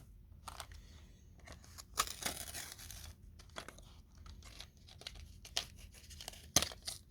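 Cardboard and plastic blister packaging of a die-cast toy car being torn and crinkled open by hand, in a string of short rips and rustles. There is a longer tear about two seconds in and a sharp snap near the end.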